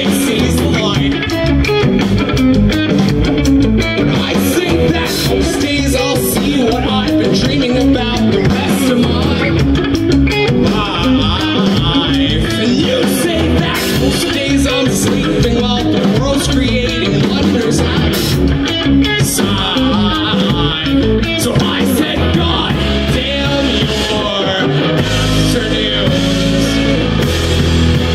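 Live rock band playing: electric guitar, bass guitar, drum kit and keyboard, with the low end getting heavier near the end.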